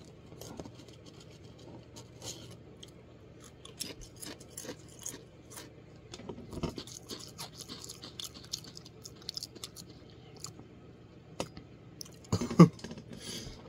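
A person chewing a Pringles potato crisp: soft, irregular crunches and mouth noises. A brief, louder hum comes near the end.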